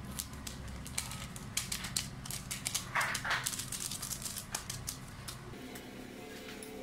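A paper sachet of baking powder rustling and being tapped as it is emptied over cake batter, then a wire whisk clicking against a glass bowl as the powder is stirred in. Two short louder sounds come about three seconds in, and a low steady hum starts near the end.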